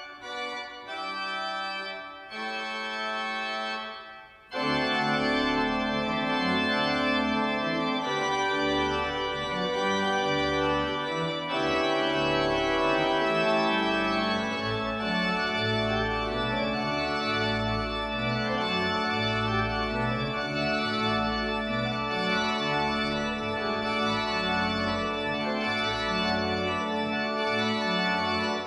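Nichols & Simpson pipe organ playing: a few quieter held chords, then about four and a half seconds in the full organ comes in loud, with deep pedal notes moving under sustained chords.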